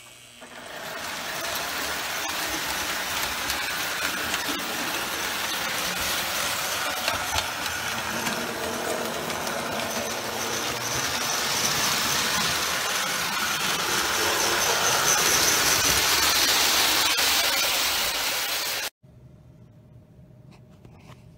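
A 1935 Lionel Red Comet 'Commodore Vanderbilt' tinplate toy locomotive running on tinplate three-rail track: its electric motor and gears whir and its wheels rattle over the rails in a steady, growing run. It cuts off suddenly near the end. The motor has been freshly cleaned and the drive wheels, damaged by zinc pest, turned on a lathe, and it runs well.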